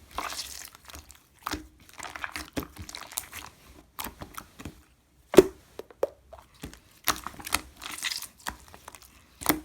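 Slime being squeezed and pressed by hand, giving irregular crackling clicks and pops with short squishy rustles between them; one sharper pop stands out about halfway through.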